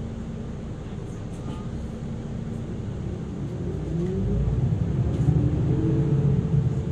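Isuzu Erga Hybrid city bus heard from inside, running quietly at first. About three seconds in, its drive note rises in pitch and grows louder as the bus accelerates.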